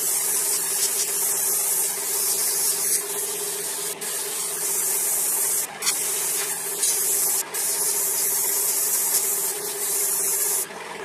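Airbrush spraying paint, a steady hiss of air that cuts off briefly a few times, the longest break near the end. A steady hum runs underneath.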